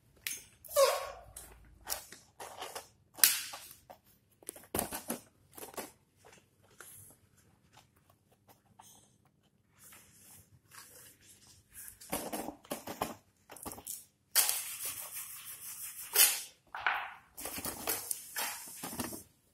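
Large fresh dong leaves rustling and crackling as they are bent, folded and creased flat by hand: irregular sharp crackles, with two longer stretches of denser rustling in the last third.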